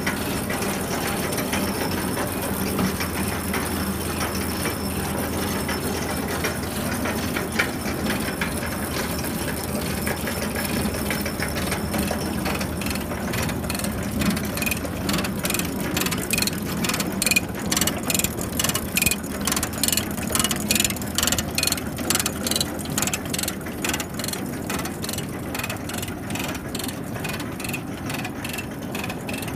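A tractor engine running steadily. Partway through, a rapid, even clicking of the New Holland 325 manure spreader's ratchet drive joins in, about three clicks a second.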